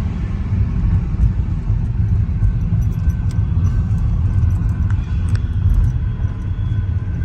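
Deep, steady rumble of an approaching train, the audio slowed down with the slow-motion footage, with a faint high tone coming and going.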